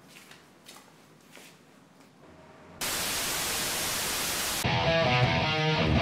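A few faint ticks in near-quiet, then about three seconds in a sudden loud burst of TV static hiss. It cuts off near the five-second mark as guitar music starts.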